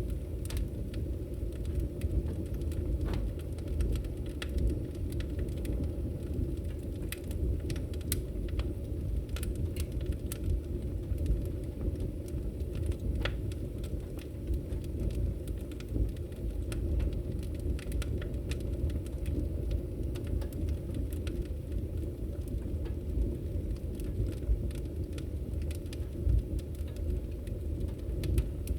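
Log fire burning in a fireplace: a steady low noise of the flames with frequent irregular sharp crackles and pops from the burning wood.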